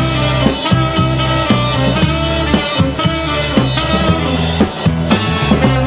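Instrumental passage of a rock band's cover song: guitar with bass and drum kit keeping a steady beat, no singing.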